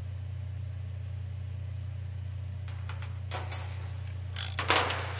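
A steady low hum, with a few short bursts of hissing noise joining it in the second half.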